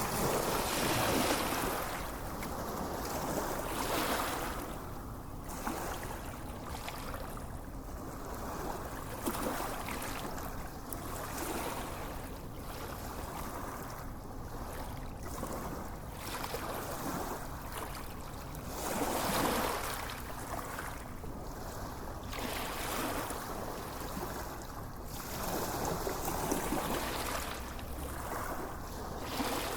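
Gentle sea waves washing onto a sandy beach. The sound swells and eases every few seconds as each small wave breaks and runs back.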